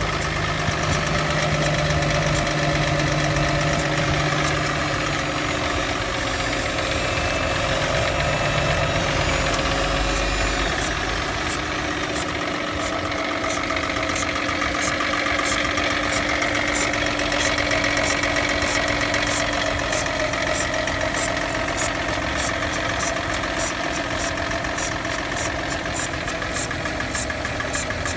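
Mercedes-Benz W164's M272 V6 petrol engine running with a regular knocking tick, about two a second at first and quicker in the second half. The owner is unsure whether the knock comes from the pistons or the hydraulic lifters.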